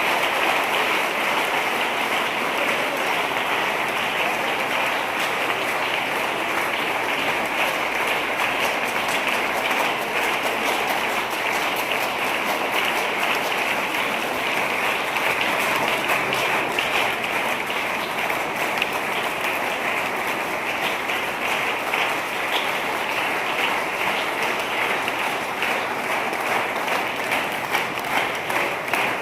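Washing machine running: a steady, dense crackling, splashing noise.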